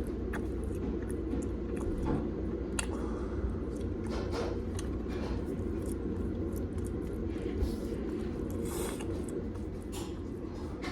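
A person chewing and biting into orange chicken close to the microphone, soft irregular wet mouth and food sounds over a steady low background hum.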